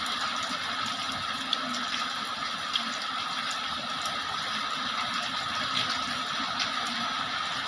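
Heavy rain pouring steadily, with a few sharper drop ticks here and there.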